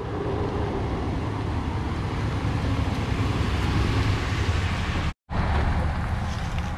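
Pickup truck towing a boat trailer, a steady rumble of engine and tyres on the ramp. It drops out for a moment about five seconds in and then carries on.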